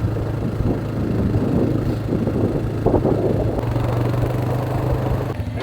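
A motor running steadily with a low hum, with a rattling clatter over it that drops away near the end.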